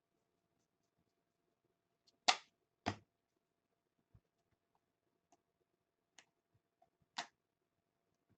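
A few sharp clicks and snaps from trading cards being handled and flicked through: two close together about two seconds in, a couple of faint ones after, and another about seven seconds in.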